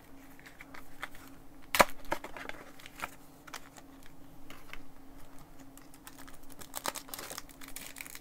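Trading cards and blister-pack packaging handled on a table: a scatter of light clicks and taps, one sharp click about two seconds in, and a brief rustle near the end, over a faint steady hum.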